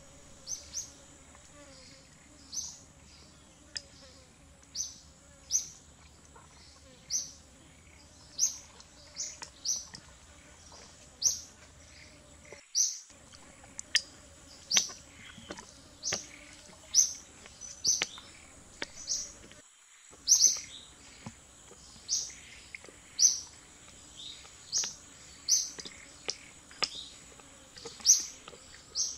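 A bird chirping repeatedly, one short high note roughly every second, over a steady high-pitched insect drone. Scattered light clicks of a metal spoon against a ceramic bowl.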